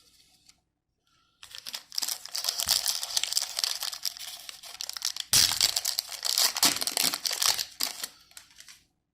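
Foil Yu-Gi-Oh booster pack being torn open and its wrapper crinkled, with a sharp, louder tear about halfway through.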